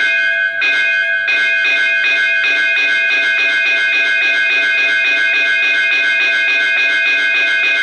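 Automatic school bell system sounding its traditional metal school bell in the long ring: a metal bell struck over and over, its ringing tones held steady between strokes. The strokes come slower at first and quicken about a second in to a steady three or so a second.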